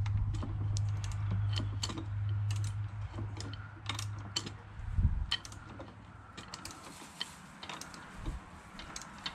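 Ratchet wrench clicking in short irregular spurts, with light metal clinks of tool and chain, as a Yamaha WR400F crankshaft is turned slowly by hand to feed the cam chain onto its sprocket. A low steady hum underneath stops about halfway through, with a thump.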